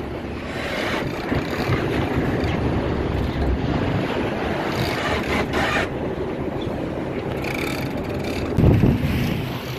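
Charter fishing boat's engine running on open water, with wind buffeting the microphone; a louder gust of wind rumble near the end.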